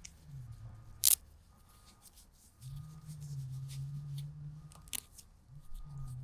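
Low, muffled hum of the Aprilia RS4 125's single-cylinder engine, swelling and fading, held steady for about two seconds in the middle. A loud sharp click about a second in and a smaller one near five seconds.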